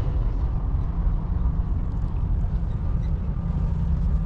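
Wind buffeting the camera microphone: a steady, low rumble that surges and dips irregularly.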